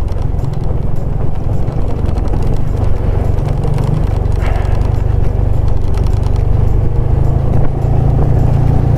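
Motorcycle engine running steadily while riding, a low drone that grows slightly louder over the stretch.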